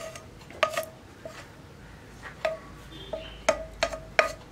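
A spatula scraping and knocking against a non-stick frying pan while emptying sautéed banana into a steel bowl of batter: about seven sharp clinks, each with a short ring.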